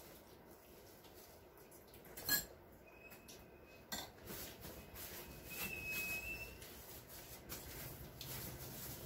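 Cutlery and dishes clinking at a meal table: a sharp clink a little over two seconds in, another about four seconds in, and lighter taps and scrapes of spoons on bowls and plates, with two brief high-pitched rings.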